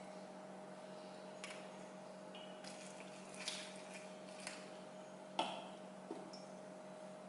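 Faint clinks and taps of a glass full of ice and a glass bottle being handled and tipped together, a few scattered knocks with the sharpest about five seconds in, over a steady low hum.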